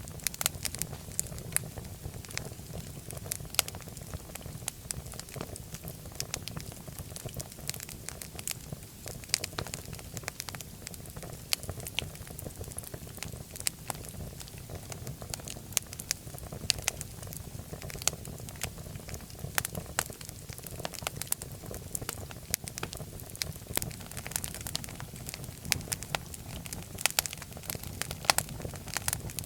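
Fireplace fire crackling: frequent, irregular sharp pops and snaps over a low, steady rumble of flame.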